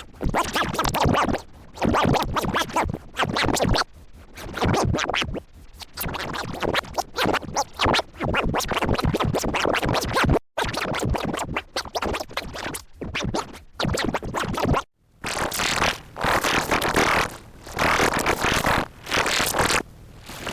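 Commercial soundtrack of music and voice chopped into a rapid stutter, with a scratching, glitchy effect. It cuts out briefly twice, about ten and fifteen seconds in.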